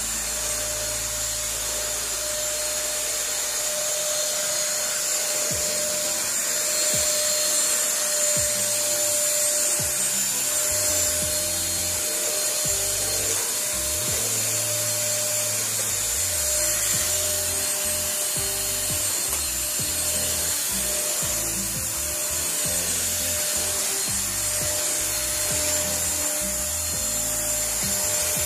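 Kaisa Villa corded stick vacuum cleaner running steadily, its motor a hissing whine with a steady mid-pitched hum, over background music with a low bass line.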